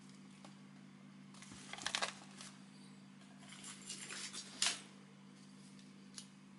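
Plastic bag and plastic sheet crinkling as they are handled, in two short spells about two seconds in and around four to five seconds in, ending in a sharp click; a small click follows near the end. A steady low hum runs underneath.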